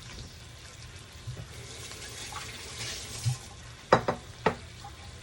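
Chayote, potatoes and onion frying in oil in a pot while being stirred, a steady sizzle, with two sharp knocks on the pot about four seconds in.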